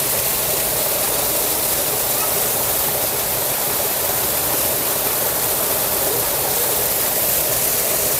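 Small stream of muddy water spilling over a rock-and-earth ledge in a little waterfall: a steady, even rushing.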